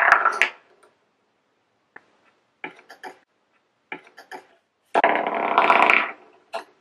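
Homemade acorn spinning tops (acorns on cocktail sticks) spinning on a hard tabletop with a rattling buzz. The buzz dies away about half a second in as the tops topple, followed by a few short clatters. Another top is twirled off about five seconds in and buzzes for about a second before it falls.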